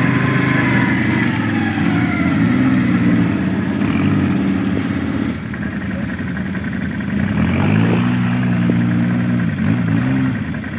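800 cc twin-cylinder ATV engines running along a rough trail. The throttle is worked on and off, so the engine note climbs and drops a few times, most plainly near the middle and again near the end.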